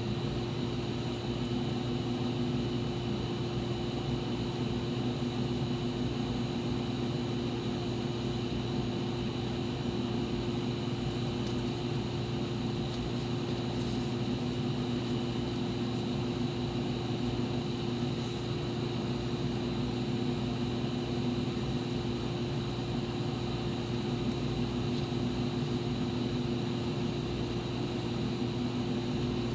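Steady hum of a machine running, with a few constant tones over an even low noise; it does not change throughout.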